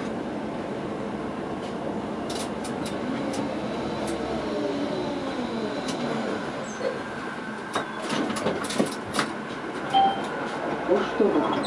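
Tatra T6A5 tram heard from its driver's cab, running slowly on street track, with its electric drive whining in tones that glide up and down in pitch. A run of sharp clicks and knocks comes about two-thirds of the way through.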